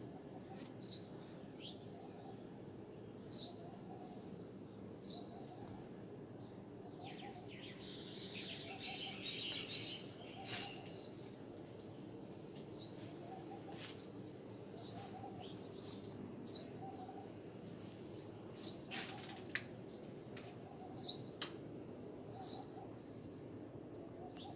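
Small bird chirping: a short high chirp repeated every second or two, with a brief spell of busier twittering about eight to ten seconds in.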